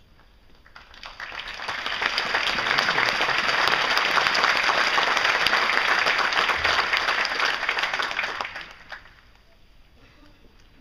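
Audience applauding: the clapping builds up about a second in, holds steady, then dies away near the end.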